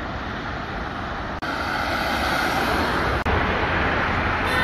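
Street ambience: a steady rumble of road traffic with wind on the microphone, and a short car horn toot at the very end.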